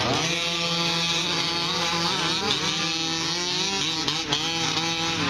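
Several 1/5-scale RC trucks' small two-stroke gas engines running together, their pitches rising and falling and overlapping as the trucks accelerate and lift off through the corners, over one steady drone.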